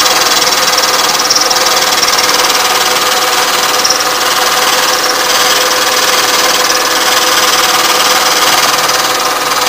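Vertical milling machine running with its end mill cutting a half-lap across a metal casting, the table fed by hand. A steady tone from the spindle and cutter sits over a constant hiss of the cut.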